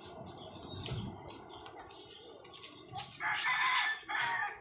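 A rooster crowing: one loud call about three seconds in, with a brief break partway through.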